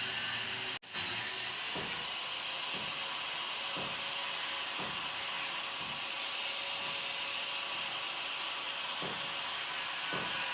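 Angle grinder's abrasive disc cutting through an iron rod: a steady harsh hiss of the disc grinding steel. It breaks off for an instant about a second in.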